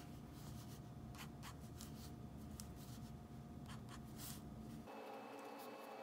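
Faint short scratching strokes of a fine-tip Stabilo Point 88 fineliner drawing lines on sketchbook paper, over a low room hum that cuts out abruptly near the end.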